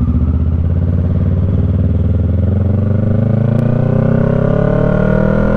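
Kawasaki Ninja 650's parallel-twin engine running under way, holding a steady note for about two seconds, then rising steadily in pitch as the bike accelerates.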